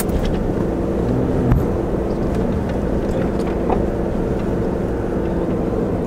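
Vehicle engine running steadily as it climbs a steep, rough dirt track, heard from inside the cabin, with scattered knocks and rattles from the jolting, one sharper knock about a second and a half in.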